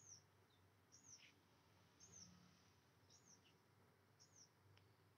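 Faint, high single chirp repeated about once a second: a small bird calling.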